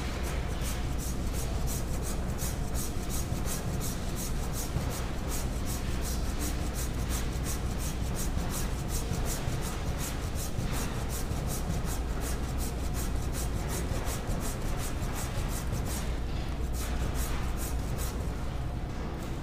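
Half-round rasp scraping down a plaster limb model in quick, regular back-and-forth strokes, shaving plaster off the posterior wall, over a steady low hum.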